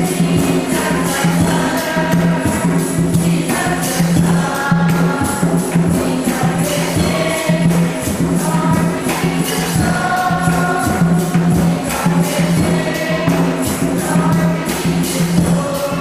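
Church choir band singing with instruments, over a steady percussion beat.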